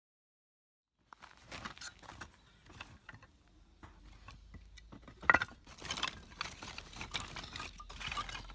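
Irregular rustling and small clicks, starting about a second in, with one sharp knock about five seconds in.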